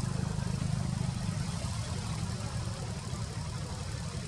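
An engine idling steadily off-screen: a low, even rumble that eases a little after the first second.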